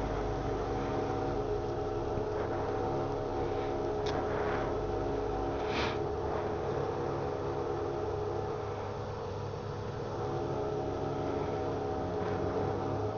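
Petrol pump dispenser humming steadily while it pumps fuel into a motorcycle's tank, with a couple of brief hissy sounds about four and six seconds in.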